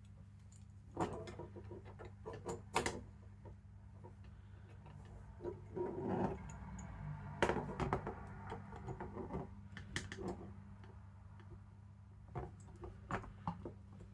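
Scattered light clicks and taps from handling the small metal parts of an armature and the tools used on it, over a steady electrical hum.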